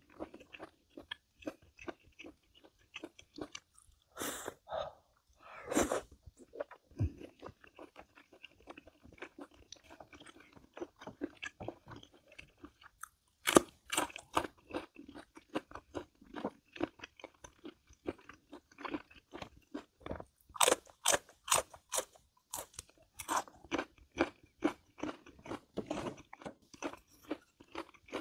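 A person chewing and crunching food, with clusters of louder crunchy bites now and then.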